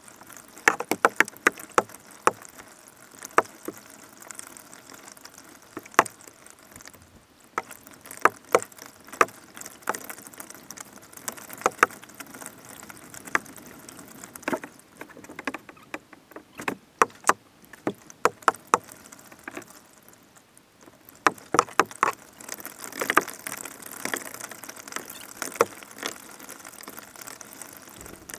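Kayak paddling: the paddle dips and drips, with irregular sharp knocks and splashes in clusters over a steady water hiss.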